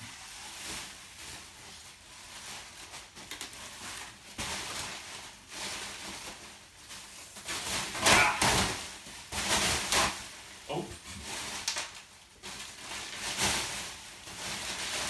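Bubble wrap and a plastic bag crinkling and rustling as a wrapped bicycle frame is lifted out of a cardboard box. The rustling comes in uneven surges and is loudest about eight seconds in.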